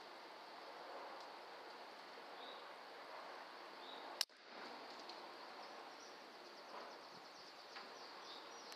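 Faint steady barn background with a few faint, short high chirps, and a single sharp click about four seconds in.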